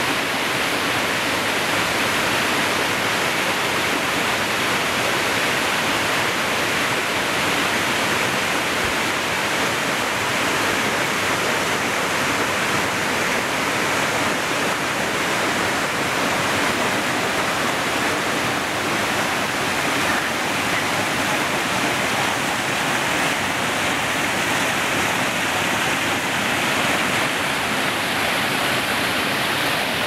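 Small woodland waterfall, a brook cascading down rock ledges: a steady rush of falling and splashing water.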